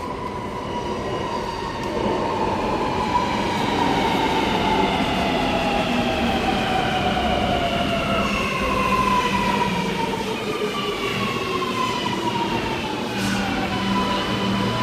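Alstom Metropolis metro train pulling into the platform, its traction motors whining in several tones that fall steadily in pitch as it slows, settling into a steady hum near the end.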